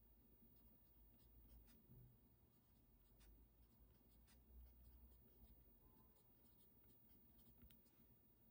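Faint scratching of a pen writing on paper, in short, irregular strokes.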